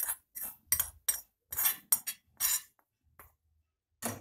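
Metal spoon scraping and clinking against a small metal kadhai as the spice tempering is scraped out onto the stuffing: a quick run of short strokes, then two more, one near the end.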